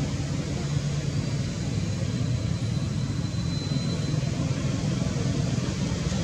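A steady low engine rumble, with a faint thin high tone in the middle.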